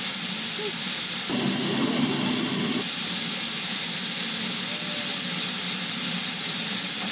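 Steady hiss of steam escaping from a standing steam locomotive, with a lower rushing sound joining briefly between about one and three seconds in.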